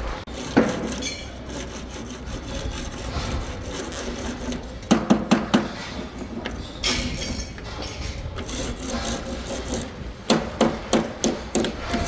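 Construction-site hammering: short bursts of quick knocks, about four a second, over a steady background rumble.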